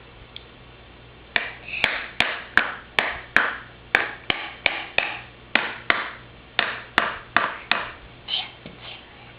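A child striking a tool against the pieces of a bolts-and-nuts set: a steady run of sharp taps, about two to three a second, each with a brief ringing tail, starting a little over a second in.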